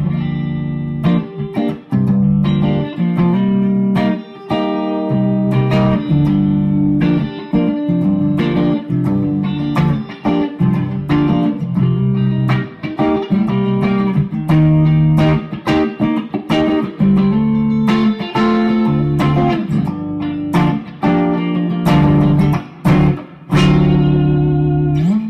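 Gibson ES-335 electric guitar played through a Bad Cat Bobcat 5R tube combo amp on a clean tone, with the gain at noon and the master volume near full, pushed about as loud as it goes while staying clean. Strummed chords and picked notes follow one another with brief breaks.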